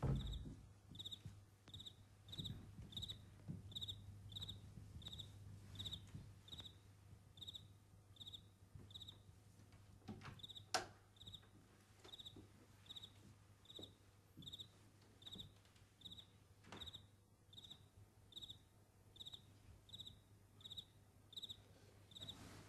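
Faint cricket chirping at an even pace, about one and a half chirps a second, over a low steady hum, with a soft click a little after ten seconds in.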